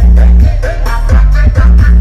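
Very loud dance music played through a large outdoor sound-system rig of twelve subwoofer cabinets, with a heavy bass line that changes note about every half second.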